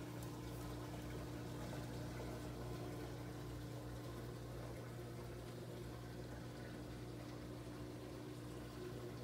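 Reef aquarium pumps running: a steady low hum over the sound of water moving.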